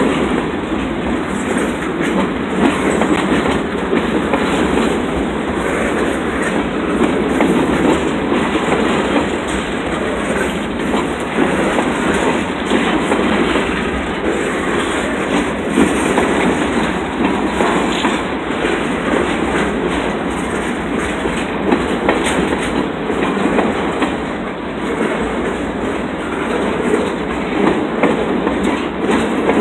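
Freight train cars rolling past, their steel wheels rumbling steadily on the rails with a continuous run of irregular clicks and clacks.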